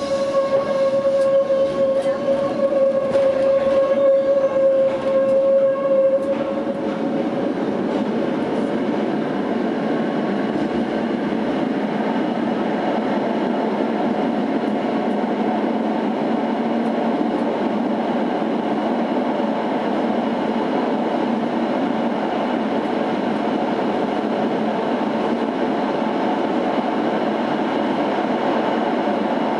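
Tatra T6A5 tram running on rails through a tunnel. For about the first six seconds a loud steady high tone rings over a run of clicks. It then settles into an even, steady rumble of the wheels on the track.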